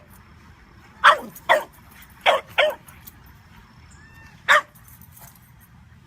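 A dog barking: five short, sharp barks, two close together about a second in, two more soon after, and a single bark later on.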